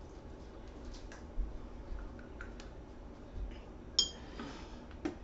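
Light clatter of kitchen utensils being handled, a metal ladle and jar tongs, with scattered small knocks and a single sharp clink that rings briefly about four seconds in.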